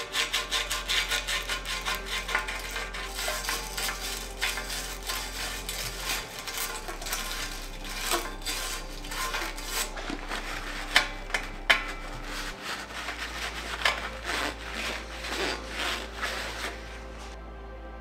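Quick, repeated rubbing and scrubbing strokes by hand on bicycle parts, about four or five a second, with a few sharper knocks around the middle; the rubbing stops shortly before the end. Soft background music runs underneath.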